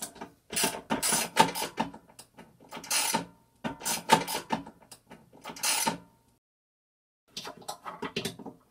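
Hand ratchet with a 6 mm hex socket clicking in several short bursts as it backs off the bandsaw motor's mounting bolts to loosen the motor.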